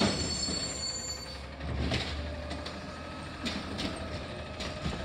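Automated side-loader garbage truck with a high brake squeal that dies away about a second in. Its engine then rises in a deep rumble as the hydraulic side arm grabs and lifts a cart, with a steady whine and several sharp metallic clanks.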